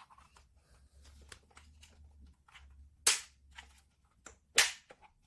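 Hard plastic clacks from the robot vacuum's removed dust box being handled and opened: light clicks, then two loud sharp snaps about a second and a half apart.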